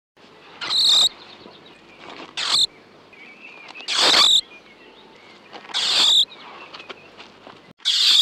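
European mole squeaking: five short, shrill squeaks spaced about every one and a half to two seconds, over a faint background hiss.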